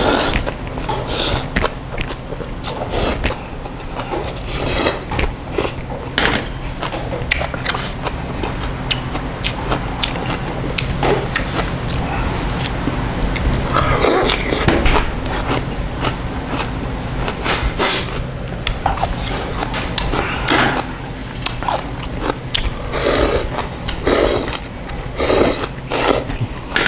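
A man slurping janchi guksu, thin wheat noodles in broth, between stretches of chewing. Several long slurps come through, the biggest about halfway.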